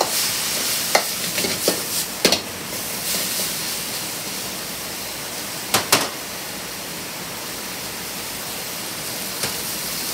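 Ground pork and vegetables sizzling in a wok over a gas flame, a steady hiss. A metal spatula clanks against the wok a few times, loudest in a quick pair about six seconds in.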